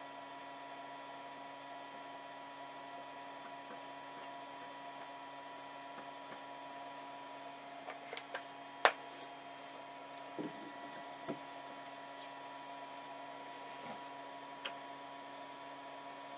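Steady electrical hum with a few fixed tones. Over it come a few small clicks and taps as the printed pieces and the super glue are handled on a wooden table, with one sharp click about halfway through.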